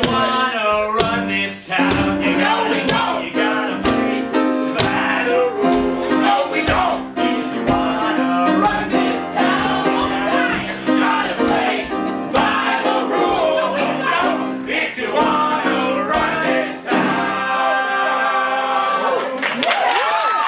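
Live stage musical number: voices singing together over instrumental accompaniment with a steady beat. The accompaniment drops out about a second before the end, leaving a single sliding voice.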